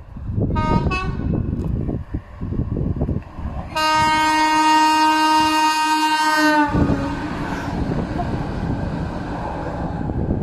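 Train horn: two short toots about half a second in, then one long blast of about three seconds that dips slightly in pitch as it cuts off, over a low rumble.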